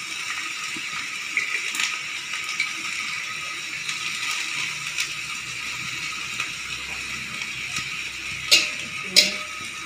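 Long beans sizzling as they stir-fry in a wok, a steady hiss, with a few sharp clinks of a metal spatula against the wok, the loudest two near the end.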